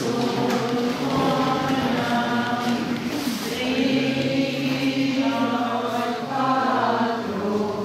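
A group of voices singing a church hymn together in slow, held notes.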